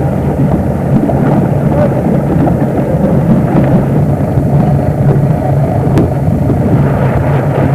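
Motorboat engine running steadily with a low, even hum, under continuous rushing noise from wind and water.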